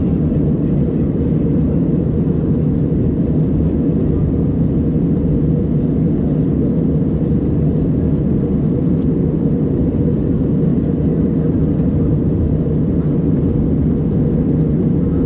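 Airbus A320 in flight heard from inside the cabin: a steady, deep rumble of engine and airflow noise, even throughout with no changes.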